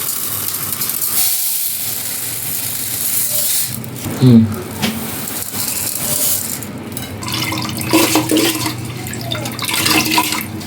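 Water running from a kitchen tap into a sink, splashing unevenly, with a brief louder sound about four seconds in.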